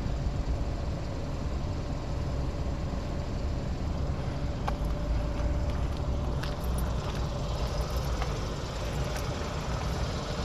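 The 2012 Kia Optima's four-cylinder engine running, a steady low rumble with a faint steady tone over it and a few light clicks.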